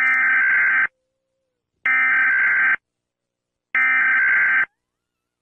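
Emergency Alert System SAME header: three bursts of screechy digital data tones, each just under a second long, about a second apart.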